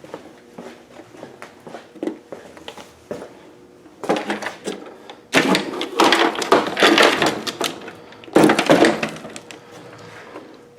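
Headlight assembly being worked loose and pulled out of a car's front end: a few light clicks, then three loud stretches of rattling and scraping.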